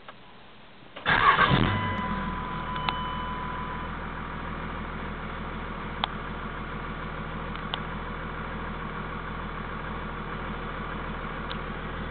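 Truck engine cranking and catching about a second in, flaring briefly, then settling into a steady idle, heard from inside the cab. A few faint clicks sound over the idle.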